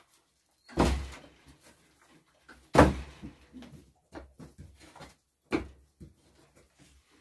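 Pressed-steel door being handled: two loud bangs about two seconds apart, then a lighter knock and a scatter of small knocks and rattles.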